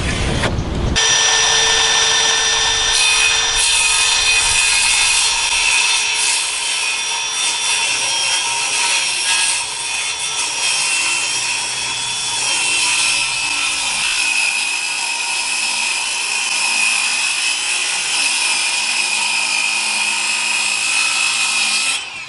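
A power saw cutting through wood at an angle, its motor whining steadily under the sawing noise. It stops just before the end.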